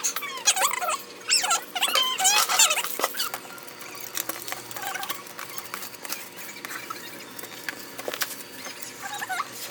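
A pet animal making high-pitched squeaks and whines in the first few seconds and again near the end, with light clicks and rustling in between.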